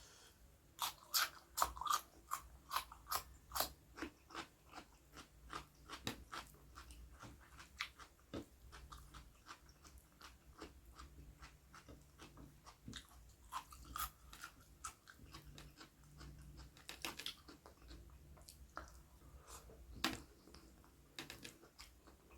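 A person eating: crisp crunching and chewing close to the microphone. A quick run of crunches comes in the first few seconds, then slower, softer chewing with a few louder crunches later on.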